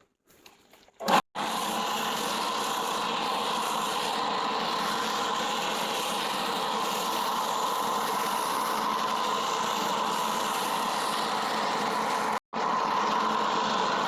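Ryobi 40-volt cordless leaf blower running steadily at full speed, a steady rush of air with a whine in it, starting about a second in and cutting out briefly near the end.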